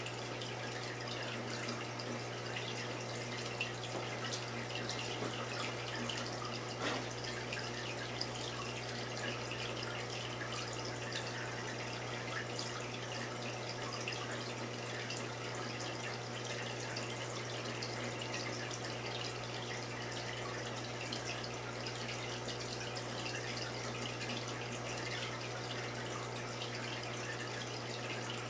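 Saltwater aquarium's water circulation running: a steady trickling and bubbling of water over a constant low hum.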